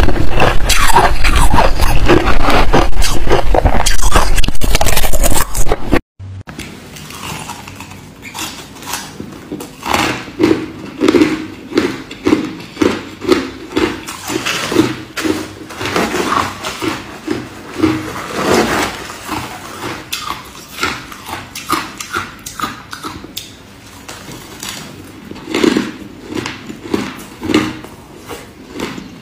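Ice being crunched while eaten. First comes loud, dense crunching of shaved ice taken from a clear balloon-ice ball. After a sudden cut comes steadier chewing of crushed ice, about two crunches a second.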